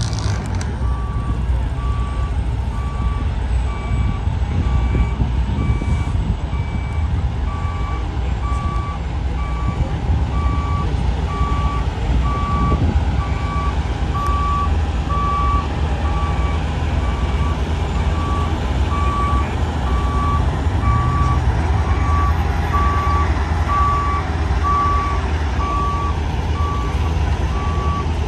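Truck backup alarm sounding a steady run of evenly spaced beeps on one pitch, over the low, steady running of a dump truck's diesel engine.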